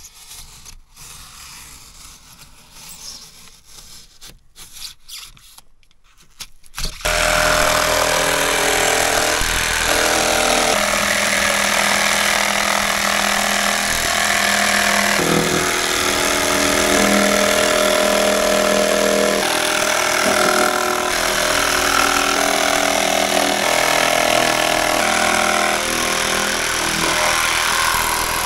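Electric jigsaw cutting a thin plywood panel. It starts suddenly about seven seconds in and runs steadily, its pitch shifting now and then.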